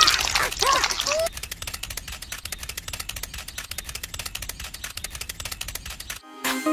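High-pitched squeaky chirps, voice-like and rising and falling, for about the first second. Then a fast, dense crackling of tiny clicks runs for several seconds. Electronic music begins just before the end.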